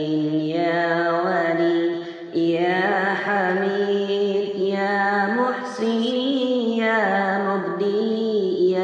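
A single voice chanting the Arabic names of Allah, one name to each drawn-out, melismatic phrase of about two to three seconds, with a short break between phrases.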